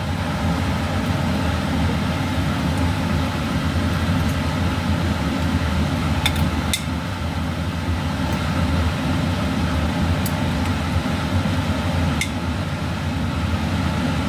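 Steady mechanical hum, with a few faint clinks of a metal spoon and fork against a glass baking dish as mayonnaise is mixed into chopped chicken.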